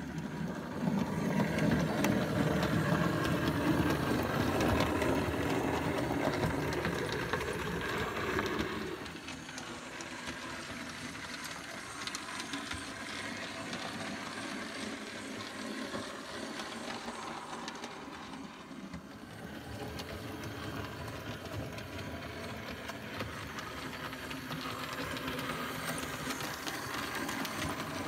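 00 gauge model train running on its track, a continuous mechanical running noise of motor and wheels. It is louder at first and drops to a quieter, steady run about nine seconds in.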